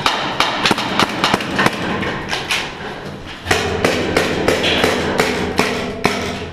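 Airsoft gunfire and BBs striking hard surfaces: an irregular run of sharp cracks and knocks, several a second. A steady low hum comes in about three and a half seconds in.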